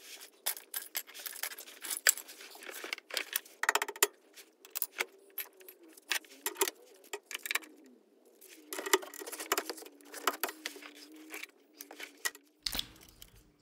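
Intermittent light metallic clicks and clinks of hand tools and small parts being worked at the steering linkage joints under a VW T2 bus, with a short run of rapid clicks about four seconds in.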